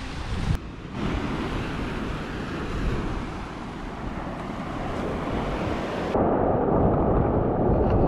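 Wind buffeting the microphone over the wash of surf on a sandy beach. About six seconds in the sound changes abruptly to a louder, fuller rush of shallow waves.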